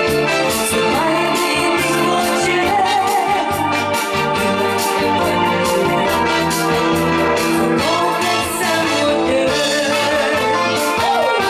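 Live band playing an amplified song, drum kit and electronic keyboard keeping a steady beat, with a woman singing into a microphone over it.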